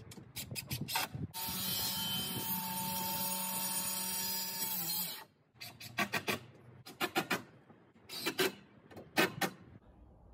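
Cordless drill driving a screw into the fascia board: a few seconds of steady motor running whose pitch sags slightly as the screw seats, then stopping abruptly. Before it come a few sharp clicks, and after it a series of short wooden knocks and clatters.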